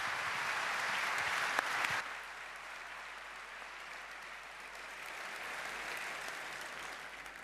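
Audience applauding, loudest for the first two seconds, then settling lower and dying away near the end.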